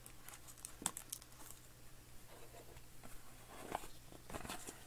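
Soft rustling and small clicks of hands handling a trading-card box and the cards inside it, with a few sharper clicks about a second in and near the end, over a faint steady hum.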